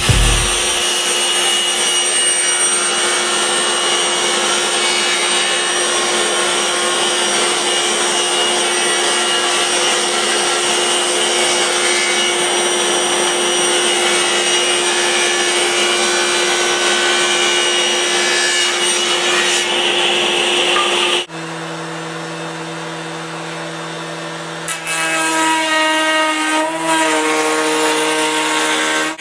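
A woodworking power tool cutting wood, a steady, unbroken rasping noise with a constant whine under it; about 21 seconds in it cuts abruptly to a quieter, steady hum whose pitch steps a few times near the end.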